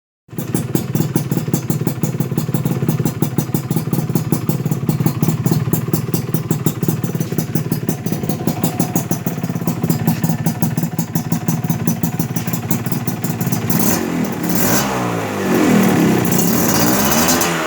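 Suzuki Satria two-stroke motorcycle engine running steadily through an aftermarket expansion-chamber exhaust of 0.8 mm steel plate, then revved up and down a few times in the last few seconds.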